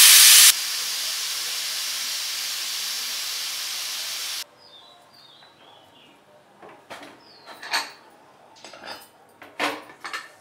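Pressure cooker releasing steam through its vent as the whistle weight is lifted with a slotted spoon. The vent hisses loudly, drops after about half a second to a steadier hiss, then cuts off suddenly about four and a half seconds in, leaving a few light metal clicks and knocks. The remaining pressure is being let out by hand after cooking so that the lid can be opened.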